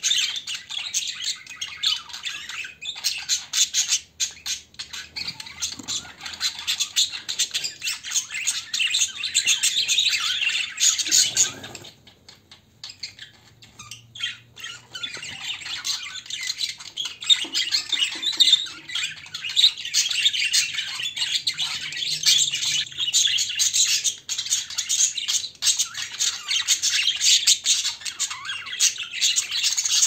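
A flock of budgerigars chattering and chirping nonstop in a dense, rapid warble, thinning out for a few seconds near the middle before resuming.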